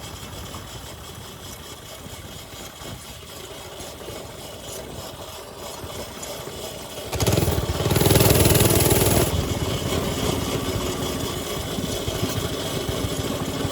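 Small mini bike engine running. About halfway through it suddenly gets much louder for around two seconds, then settles back to a steady run.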